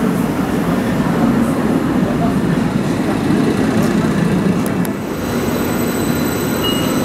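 Red electric S-Bahn multiple unit running past along the platform, a dense steady rumble of wheels and running gear. About five seconds in it gives way to a quieter rail-station sound with steady high whistling tones, as a Stadler FLIRT electric multiple unit draws in.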